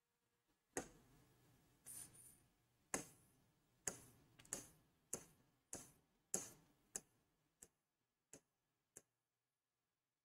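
Stylus tapping on an interactive touch-display screen: about a dozen faint, sharp taps, spaced roughly half a second to a second apart, growing sparser and fainter near the end.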